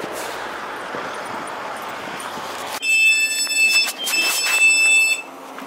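Steady street traffic noise, then nearly three seconds in a loud, high-pitched electronic warning tone sounds in two stretches of about a second each with a brief break: a public transport vehicle's door-closing warning.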